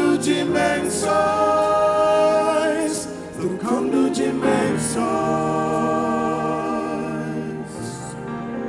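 Singing voices in a Christian song, holding long notes with vibrato, one sustained chord-like passage after another.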